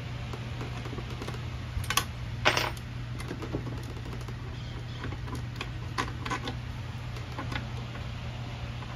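Small clicks and rattles of wiring and a small hand tool being handled inside the sheet-metal housing of a Fuji Spray Mini Mite 4 turbine. Two brief louder bursts of clicking come about two seconds in, then scattered light clicks follow, over a steady low hum.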